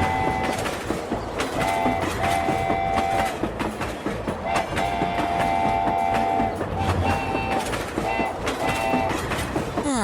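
Train running with a steady rattle and quick clickety-clack of wheels over rail joints, while a two-tone horn sounds in about seven blasts, some brief and some held for up to two seconds.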